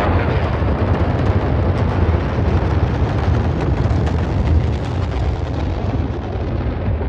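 Rocket-launch roar: a loud, dense rumble with crackle running through it, its treble slowly dulling toward the end.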